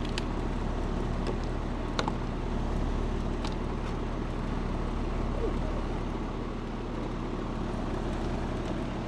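Running air-conditioning unit giving a steady low hum, with a few light clicks from hand work on its fittings, the sharpest about two seconds in.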